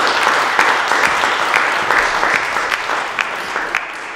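Audience applauding, a dense spread of many hands clapping that tapers slightly toward the end.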